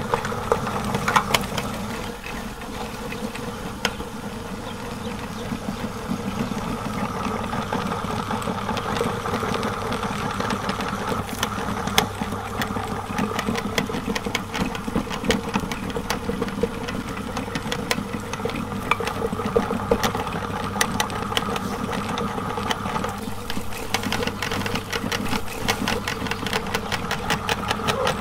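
Electric meat grinder running steadily while its auger crushes bars of soap and forces them through the cutting plate, a constant motor hum with dense crackling and clicking from the soap breaking up.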